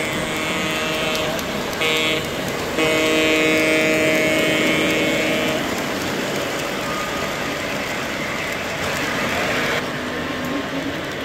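Sound-equipped three-rail O-gauge model diesel locomotive sounding its electronic horn chord: a blast ending about a second in, a short toot about two seconds in, then a longer, louder blast of nearly three seconds. A brief hiss follows about nine seconds in and stops sharply.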